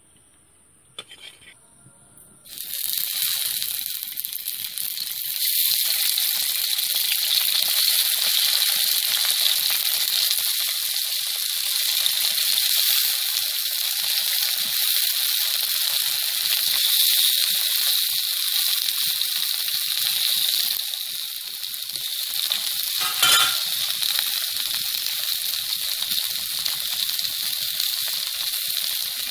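Okra pods frying in hot oil in an iron kadai: a loud sizzle starts suddenly about two and a half seconds in as the pods go into the pan, then carries on steadily. A brief knock sounds about two-thirds of the way through.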